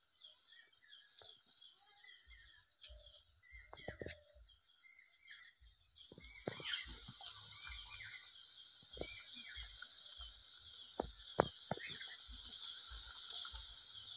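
Breaded vegetable chops deep-frying in a karahi of hot oil: a steady sizzle that comes in about six seconds in, with a few sharp pops. Small birds chirp repeatedly throughout.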